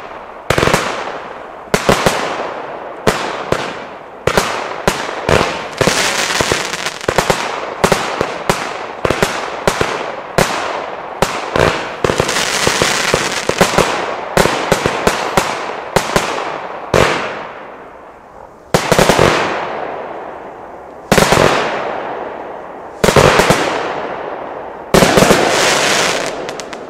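Nico Europe 'Performer' firework battery (a consumer cake) firing shot after shot, each a sharp bang that trails off in a hiss as the stars burst. The shots come about once or twice a second at first, then spread out to about every two seconds near the end, each with a longer hissing tail.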